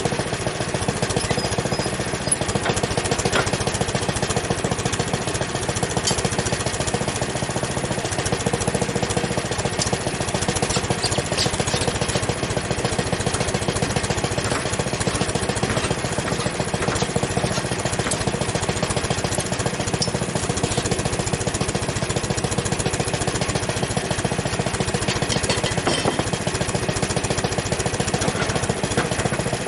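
Frontier OS23 portable bandsaw mill running steadily, its gas engine driving the band blade through an ash log.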